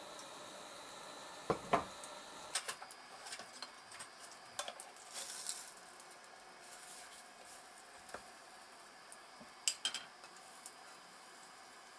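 A cast-iron skillet clanks against a frying pan as it is lifted off a pressed sandwich: a loud double knock about one and a half seconds in. A wooden spatula then taps and scrapes in the pan, and the skillet knocks down again in a short cluster near the end.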